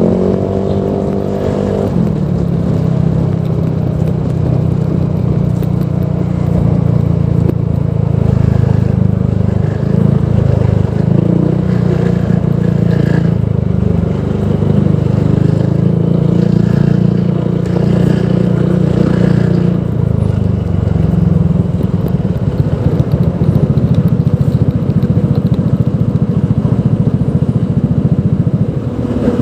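Honda PCX 160 scooter's single-cylinder engine running through a Proliner Neo Silent aftermarket exhaust, with a deep exhaust note. Its pitch drops in the first couple of seconds, then holds with small rises and falls.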